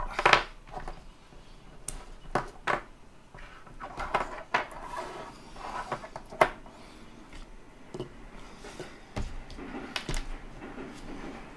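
Small plastic battery packs and thin charge leads being handled and set down on a tabletop: scattered clicks, taps and rustles, the loudest about half a second in.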